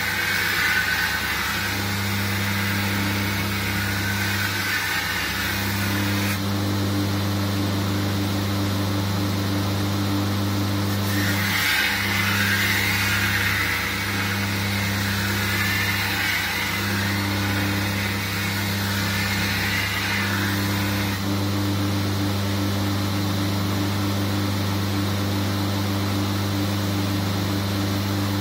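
Belt grinder motor running with a steady hum while its abrasive belt grinds the edge bevel of a steel sabre blade, throwing sparks. A hissing rasp of steel on the belt comes and goes as the blade is pressed on: for the first few seconds and again through the middle, with only the motor hum toward the end.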